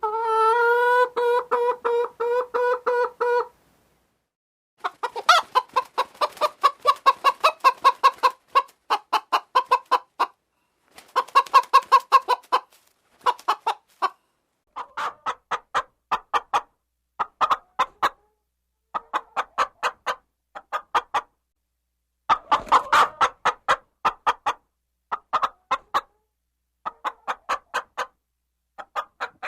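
Hens clucking in quick runs of short clucks, several a second, each run cut off by a brief dead silence. It opens with a longer, steady-pitched call of about three seconds.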